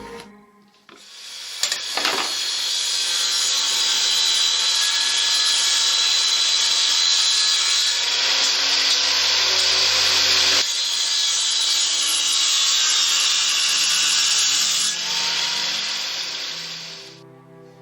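Electric power tool working wood, running steadily at an even pitch. It starts about a second in, runs for some fifteen seconds and winds down near the end.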